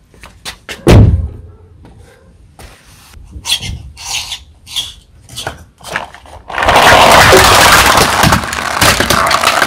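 A car tyre rolls onto a plastic toy truck loaded with plastic building blocks, and from about two-thirds of the way in the plastic cracks and crunches loudly and without a break as it is crushed flat. Before that there is one loud knock about a second in and scattered light clicks and taps.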